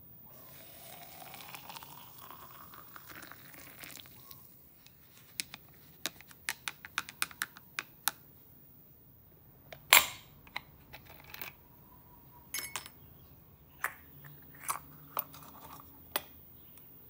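Hot water poured into a glass French press over coffee grounds, the pitch rising as it fills. Then a metal spoon clinks against the glass in quick taps while stirring, with one loud clink about ten seconds in. Near the end there are metal clicks as the lid and plunger are fitted.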